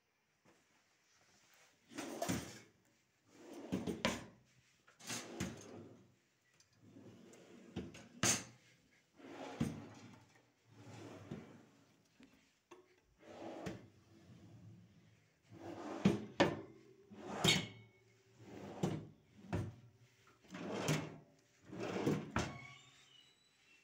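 Kitchen cabinet shutters and drawers being opened and shut one after another, over a dozen times, each a short slide or swing ending in a click or knock.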